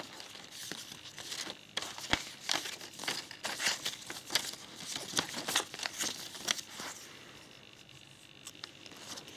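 Crinkling and rustling of a trading-card packet's plastic wrapper and the cards being handled: a dense run of quick crackles that dies away about seven seconds in.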